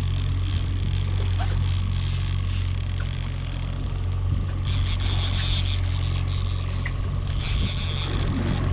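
Fishing boat's engine running steadily, a low continuous drone, with a hiss of wind and water over it.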